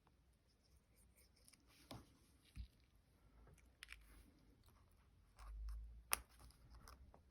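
Near silence with faint clicks and light rustles of paper card being handled on a craft table. A low bump and then one sharp click about six seconds in are the loudest moments.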